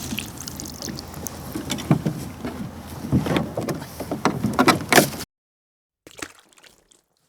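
Water sloshing and splashing with irregular knocks, which stops abruptly about five seconds in.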